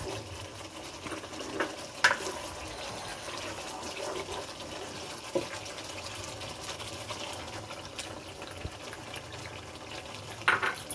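Thick chicken karahi gravy bubbling and sizzling steadily in a wok-like karahi on a gas burner, with a few sharp knocks of the spatula against the pan, the loudest about two seconds in.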